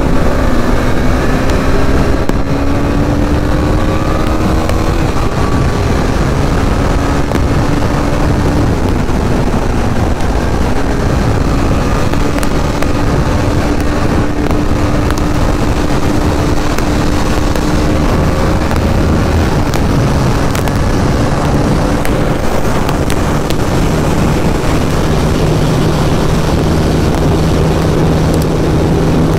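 BMW G310GS's single-cylinder engine running hard at high revs, pulled toward the top end at speed, its steady note creeping up and dipping briefly a few times, under heavy wind rush on the helmet microphone.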